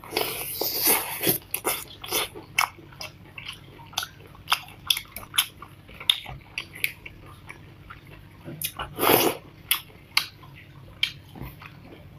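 Close-miked eating of spicy snails: chewing and sucking at the shells, with many short, sharp clicks and smacks as shells are handled and bitten. There are two longer, louder stretches, one at the start and one about nine seconds in.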